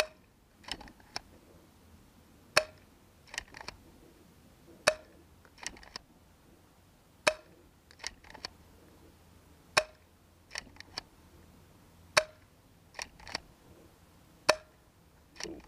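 Spring-powered JT SplatMaster Z100 paintball pistol firing, seven sharp snaps about two and a half seconds apart, each with a short ringing tone. Between the shots come pairs of softer clicks.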